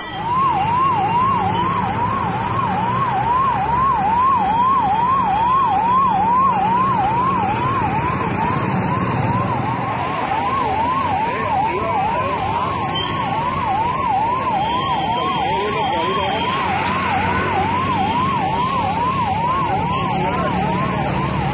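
Fire engine siren in a fast yelp, a rising-and-falling wail repeating about twice a second. From about ten seconds in, a second siren overlaps slightly out of step, over a low steady rumble.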